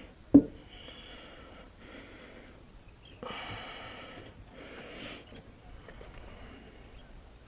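A single sharp thump about half a second in, then several short bursts of hiss.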